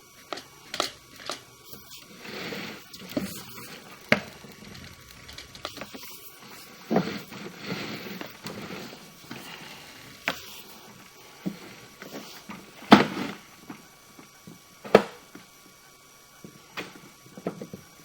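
Irregular clicks, knocks and scraping as sewer inspection camera gear is handled and its push cable is fed through a cleanout, with two sharper knocks near the end.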